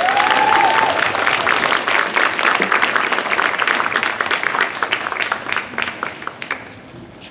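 A small audience applauding, a dense patter of hand claps that thins out and fades away over the last couple of seconds. A single voice calls out briefly at the start.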